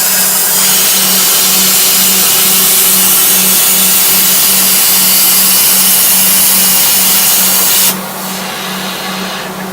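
CNC plasma cutter cutting metal: a loud, steady hiss over a low pulsing hum. The hiss cuts off abruptly about eight seconds in, leaving a quieter, duller machine noise.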